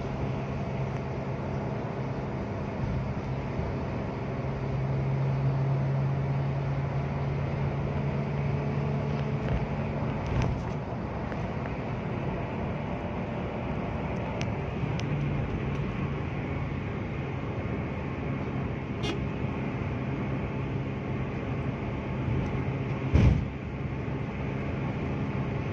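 Inside a car cruising at about 120 km/h: the steady drone of the engine turning near 4,000 rpm, mixed with tyre and wind noise. A few faint clicks, and one loud single thump near the end.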